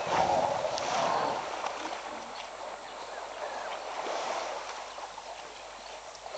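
Water splashing and sloshing as an elephant swims and wades through a waterhole. The splashing is strongest in the first second or so and again about four seconds in.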